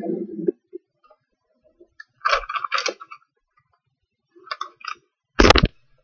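A sheet of paper being handled and folded on a wooden table: short bursts of rustling and crinkling, then a sharp thump about five and a half seconds in, the loudest sound.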